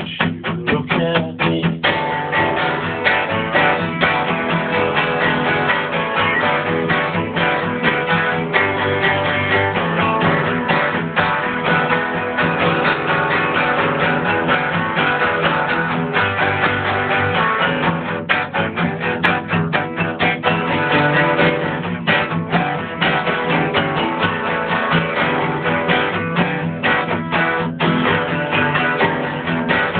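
A guitar playing continuously, plucked and strummed.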